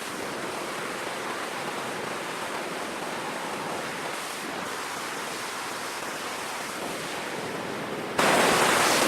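Steady rushing noise of heavy seas and wind. About eight seconds in, a much louder rush cuts in abruptly.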